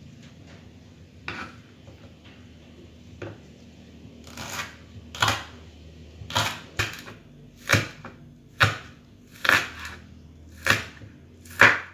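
Kitchen knife slicing through spring onion stalks and striking a wooden chopping board: a few faint cuts, then from about four seconds in a regular run of crisp chops, roughly one a second, growing louder toward the end.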